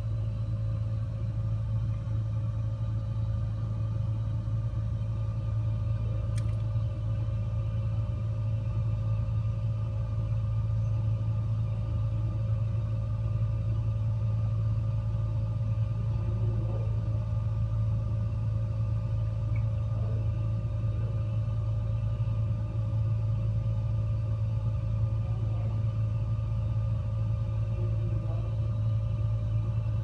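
Gas fireplace burning: a steady low rumble from the burner flames, with a faint steady hum over it. A single faint click about six seconds in.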